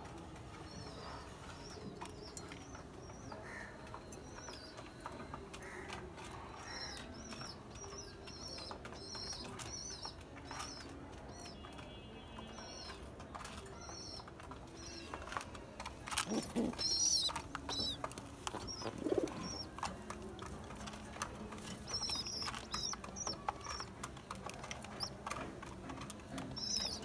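Caged pigeons feeding from seed pots, with many light taps and rustles and a louder flurry of taps about sixteen seconds in. Short high bird chirps repeat throughout.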